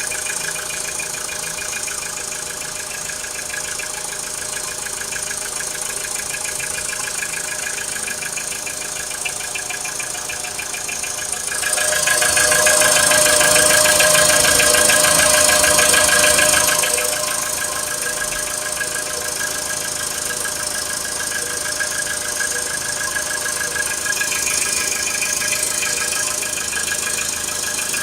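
VW Polo Sedan (2012) 1.6-litre four-cylinder petrol engine idling from a cold start, with a fast, steady knock running through it. The sound grows louder for about five seconds near the middle, then settles back.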